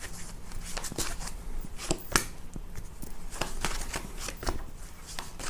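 A deck of cards being shuffled by hand, a quick irregular run of card clicks and slaps.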